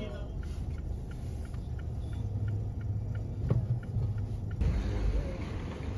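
A steady low rumble, with faint light ticks about three a second that stop about four and a half seconds in.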